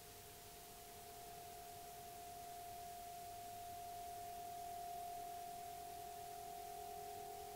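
104-inch Aeolian wind harp sounding in the wind: two steady, pure, drone-like tones held together, the higher one swelling louder around the middle and easing back a little near the end.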